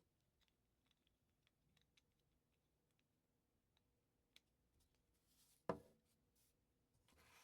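LEGO bricks and small plastic parts being handled and pressed together: faint scattered ticks, then one sharp louder click about two-thirds of the way through, with brief soft rustles of pieces just before it and again near the end.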